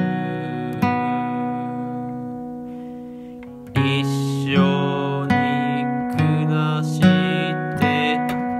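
Acoustic guitar music: a chord struck and left to ring, fading away for about three seconds, then strummed chords resuming about every second.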